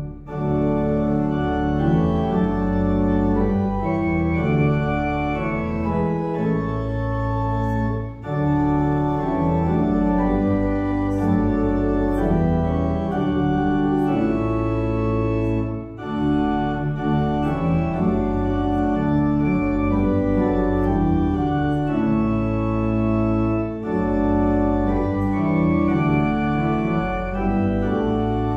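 Organ playing a hymn in sustained chords over a strong bass line, with short breaks between phrases about every eight seconds.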